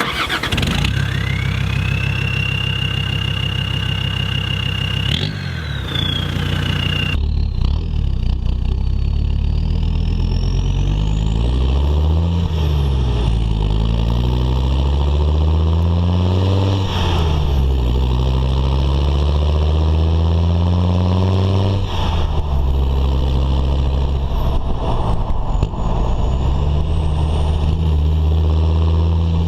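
Land Rover Defender 90 Td5's five-cylinder turbodiesel engine running at idle through its exhaust. It is revved up and let fall back several times. A high steady whine is heard over the first few seconds.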